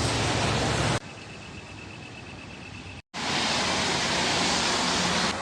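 Steady hiss of rain, in short cut-together stretches: it drops abruptly quieter about a second in, cuts out for an instant about three seconds in, then comes back loud.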